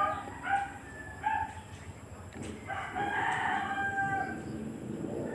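A rooster crowing: one long held call starting about three seconds in and lasting more than a second, after a couple of short calls.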